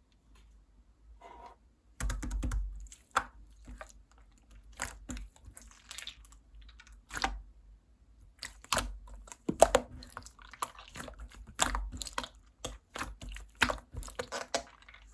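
Slime being squished, stretched and pressed by hand, giving a run of sticky clicks and small pops at an irregular pace that starts about two seconds in.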